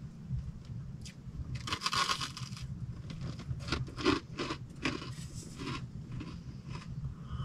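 Light clicks and scrapes of tableware and food being handled on a wooden table during a meal, with a rustling, crunching patch about two seconds in, over a steady low hum.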